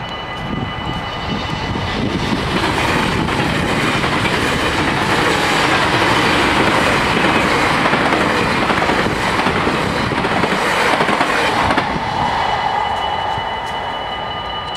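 NS VIRM double-deck electric train passing over a level crossing: its rolling noise and wheel clatter swell about two seconds in and fall away after about twelve seconds. The crossing's mechanical bells ring steadily underneath, heard clearly before and after the train.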